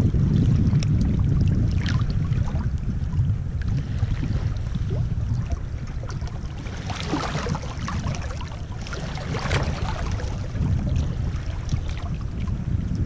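Small waves lapping and washing over pebbles right at the microphone, over a steady low rumble, with louder splashy washes about seven and nine and a half seconds in.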